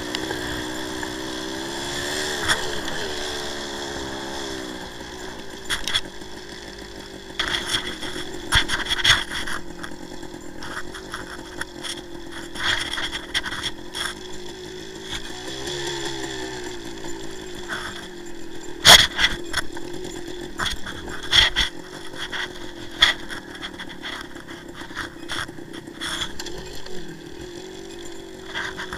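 1984 Suzuki TS185's single-cylinder two-stroke engine running as the bike rides a rough dirt trail, its revs rising and falling, with frequent knocks and rattles from the bumps.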